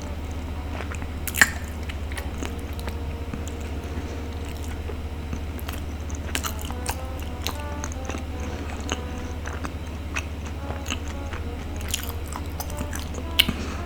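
Biting and chewing sounds of eating a glutinous rice ball, with sharp clicks; the loudest are about a second and a half in and just before the end. Light background music plays underneath.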